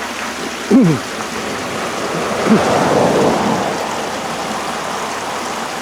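Clear chalk stream flowing under a small road bridge: a steady rushing of water that swells a little around the middle.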